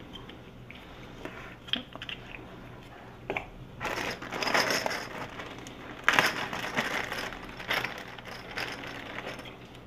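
Clear plastic bags crinkling and rustling as hands dig through the game's white plastic building pieces, with a few light clicks. The rustling is loudest about four and six seconds in.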